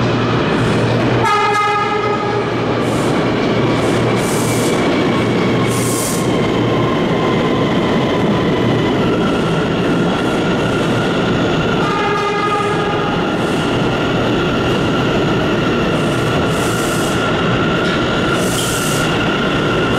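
New Bombardier R179 subway train running past on the rails, a steady loud rumble of wheels on track. A horn sounds briefly about a second in and again around twelve seconds, and a steady high whine comes in partway through.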